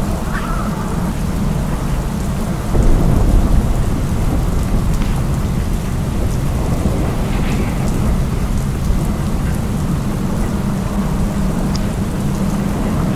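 Steady low rumble of wind buffeting the microphone of an e-bike moving through rain, over an even hiss of rain and tyres on the wet pavement, swelling louder for about a second around three seconds in.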